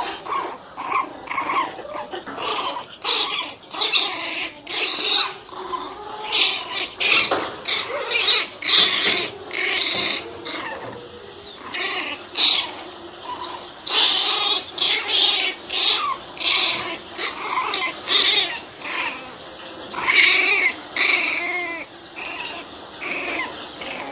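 Pinscher puppies yapping and growling as they play-fight: a busy run of short, high-pitched barks, about two a second.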